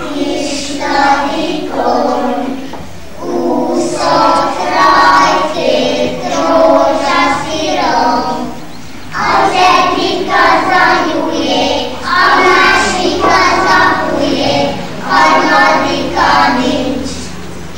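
A group of young kindergarten children singing together, in sung phrases with short pauses for breath between them.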